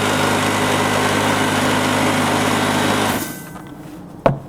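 Air compressor motor running steadily while it inflates an ATV tire to seat the bead, then shutting off about three seconds in. A single sharp knock near the end.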